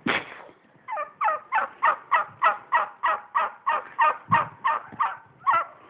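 Farmyard fowl calling: a fast, even run of about sixteen short calls, each sliding down in pitch, about three a second. It starts about a second in and stops near the end. A thump comes right at the start.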